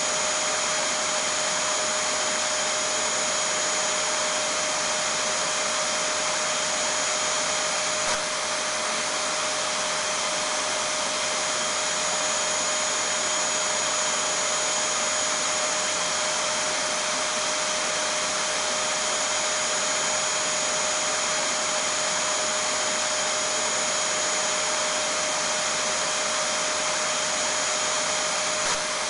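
Vacuum cleaner running steadily: an even rushing noise with a constant high whine, unchanging throughout.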